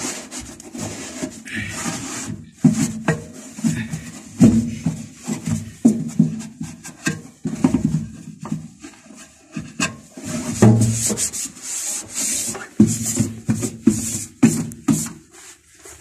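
A cloth rag scrubbing the grimy metal walls and floor of a microwave oven's cavity, in irregular rubbing strokes.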